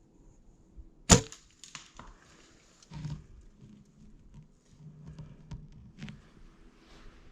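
A single sharp shot about a second in, from a deer hunter's weapon, followed by faint rustling and a few small clicks.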